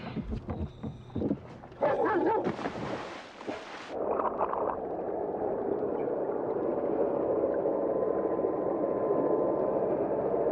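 Brief clatter of dive gear, then a splash about two and a half seconds in. After that a steady underwater drone with a faint hum.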